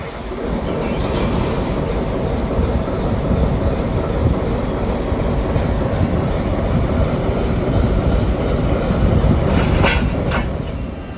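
ChME3 diesel-electric shunting locomotive running close by, a loud steady rumble. A brief sharp noise comes near the end.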